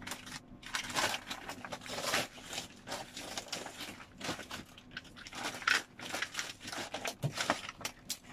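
Rustling and crinkling of a black carrying pouch as a dual-wheel ab roller is pushed and handled inside it, in irregular bursts of scraping with a small knock near the end.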